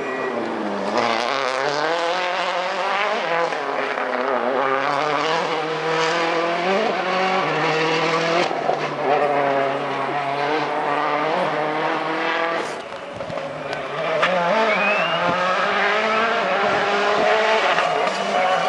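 Citroën C4 WRC rally car's turbocharged four-cylinder engine driven hard, its revs climbing and dropping again and again with quick gear changes as it approaches. It grows louder about three-quarters of the way through.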